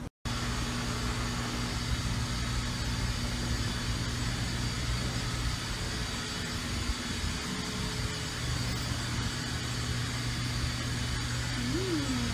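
A steady low mechanical hum, like a motor or engine running, with a brief dropout just after the start and a short rising-and-falling pitch glide near the end.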